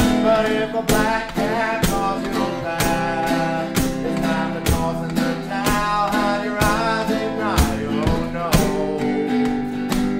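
A man singing a song to his own strummed guitar, the strums falling in a steady rhythm about twice a second under the voice.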